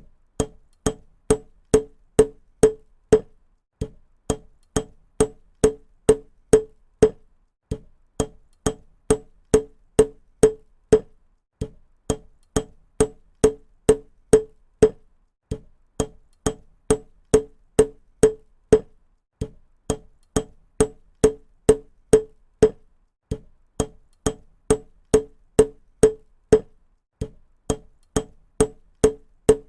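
Hammer striking repeatedly, about two to three blows a second, in runs of several blows broken by short pauses roughly every four seconds. Each blow is sharp and rings briefly at one steady pitch.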